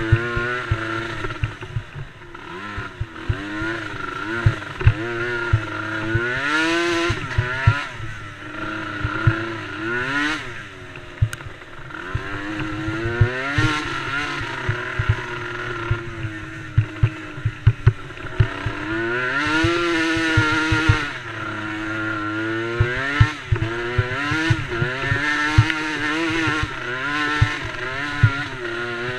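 Small youth ATV engines racing, several at once, their pitch rising and falling again and again as they rev up and back off, with many short knocks and thumps underneath.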